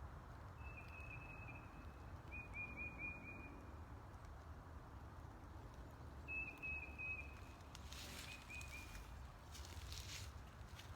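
A bird singing four short runs of quick, high chirps, over a steady low rumble of wind. A few soft knocks or steps come near the end.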